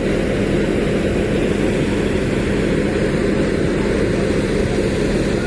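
Heavy diesel engine of an excavator or tipper truck running steadily under load, a constant low drone with a steady hum.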